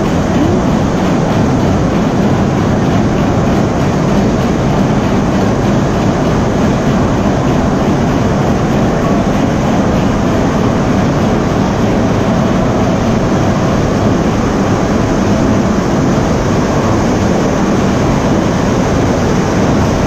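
Stationary steam engine with a large spinning flywheel, driving belt-powered sawmill machinery: a steady, loud mechanical running noise.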